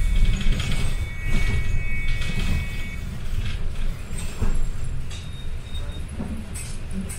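City bus interior while driving slowly on a wet road: steady engine and road rumble with the body and fittings rattling and clicking, and a thin high squeal from about one to three seconds in.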